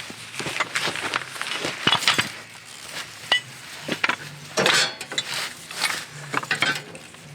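Irregular metallic clinks and knocks of metal tools and parts being handled, with a faint low hum coming in about halfway through.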